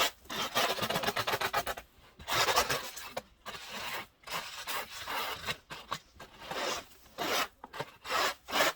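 Scraper dragged over snow and ice crusted on a car, in a string of repeated rasping strokes, a quick run of short ones at first and then separate strokes of under a second each.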